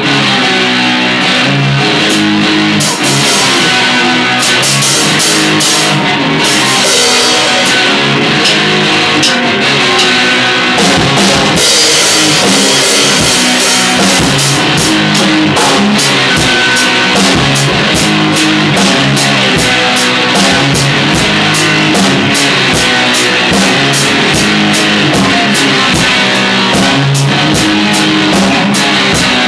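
Live rock jam with a drum kit and a guitar playing together, at a steady beat.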